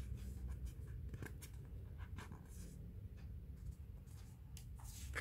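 Faint, scattered rustles and light crackles of a sticker sheet being handled and shifted between the fingers.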